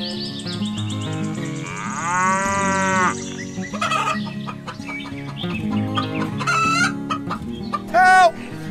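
Chickens: a rooster crows once, a long arched call about two seconds in, among short hen clucks.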